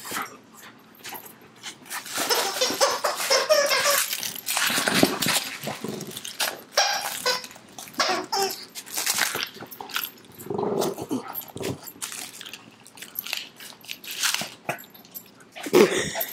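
A German Shepherd and Boston Terriers playing with plush toys: irregular scuffling and snuffling with the odd short dog vocal sound, busiest in the first half.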